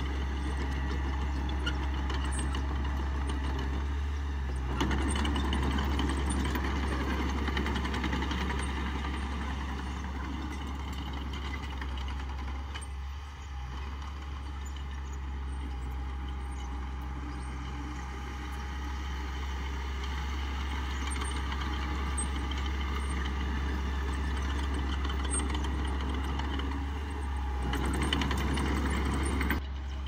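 Small Mitsubishi bulldozer's diesel engine running steadily as it pushes soil, growing louder about five seconds in and again near the end.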